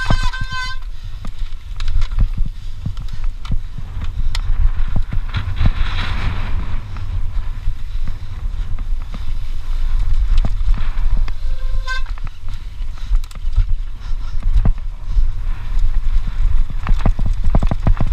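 Mountain bike descending rough dirt singletrack at speed: heavy wind buffeting on the microphone, with a dense stream of rattles and knocks as the bike bounces over ruts. A short, high brake squeal right at the start and another about twelve seconds in.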